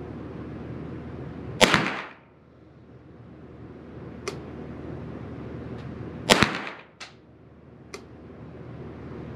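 Two shots from a Derya TM22 .22 LR semi-automatic rifle firing Aguila Super Extra high-velocity hollow-point rounds, about four and a half seconds apart, each echoing briefly in a small indoor range. A few faint clicks come between and after the shots.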